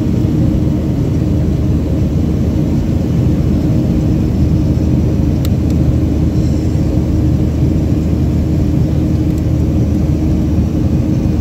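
Steady engine drone and rumble of a jet airliner climbing after takeoff, heard inside the cabin from a window seat by the wing.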